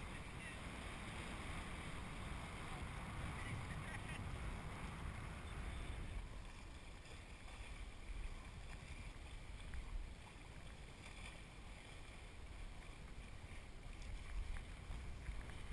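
Steady wind noise buffeting the microphone of a camera swinging from a sailboat's halyard, strongest in the low end, with a faint hiss of water beneath.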